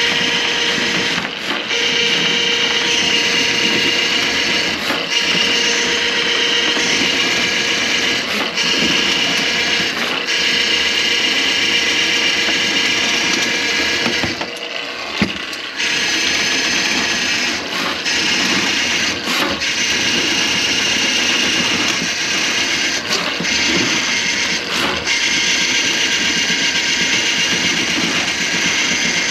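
Electric drain-cleaning machine running steadily, its cable spinning through a drain line clogged with grease. The motor sound dips briefly every few seconds, with a longer break and a single knock about halfway through.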